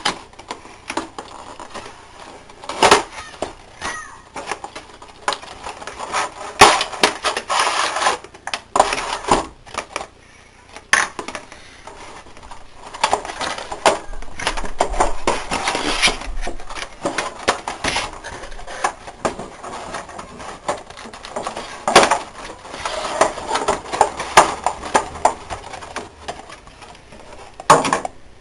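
Webcam retail packaging being handled and opened by hand: irregular rustling and scraping with many sharp clicks and knocks, in stretches of busier rustling.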